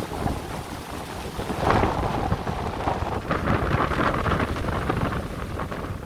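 Storm wind gusting, buffeting the microphone with a heavy rumble and rushing through the trees and hedges. Stronger gusts come about a second and a half in and again from about three seconds.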